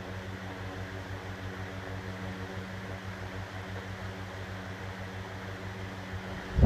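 Seiden Denko (Toshiba) IF-254TU pressure ventilation fan, built in 1997, running steadily: a low, even hum over a soft rush of air, a quiet-running unit. A sudden loud noise begins at the very end.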